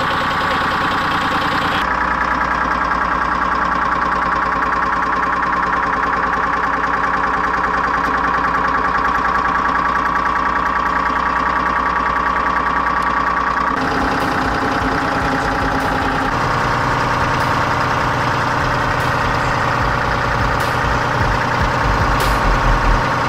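Engine of a small Titan yard tractor running steadily at idle, with a strong steady whine and a fast even flutter over the engine note. The sound shifts twice, about two seconds in and about fourteen seconds in.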